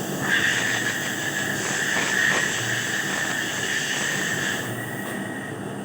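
A machine running with a steady high-pitched squealing whine over a hiss. It starts shortly in, fades somewhat near the end and then stops.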